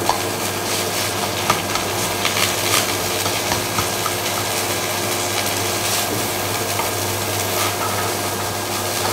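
Cold cooked rice sizzling gently in a hot, lightly oiled nonstick pan as wooden chopsticks stir and break it up, with light scraping and scattered taps against the pan: the rice being stir-fried to reheat it. A steady low hum runs underneath.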